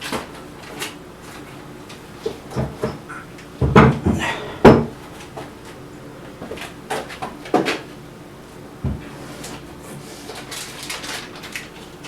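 Scattered clunks and knocks of a benchtop wood lathe and its parts being handled during setup, the loudest two knocks about four and five seconds in.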